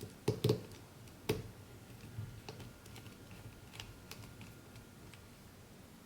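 Sharp clicks and light taps of computer parts being handled during assembly: three loud clicks in the first second and a half, then scattered fainter ticks.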